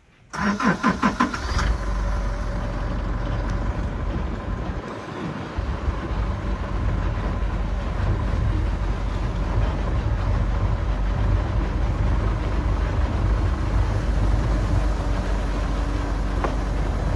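A vehicle engine starts suddenly just after the beginning and then runs with a steady low rumble.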